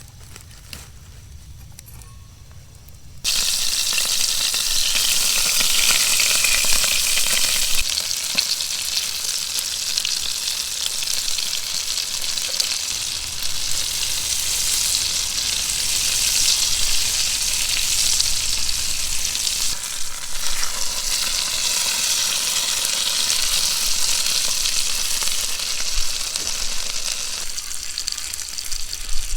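Food frying in a hot pan over a campfire: the sizzling starts suddenly about three seconds in and carries on steadily.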